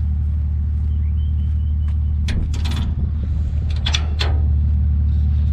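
Steel rear gate of a dump trailer swinging open, with two clusters of metal clanks as it swings and its spring latch pin catches, about two and four seconds in. A steady low engine drone runs underneath.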